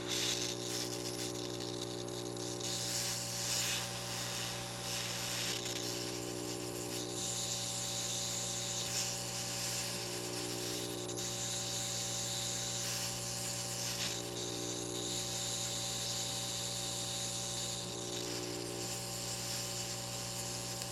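Hot air rework station blowing through a small nozzle onto a surface-mount chip to melt its solder: a steady hiss of air over a constant electrical hum, with a low buzz that comes and goes every four seconds or so.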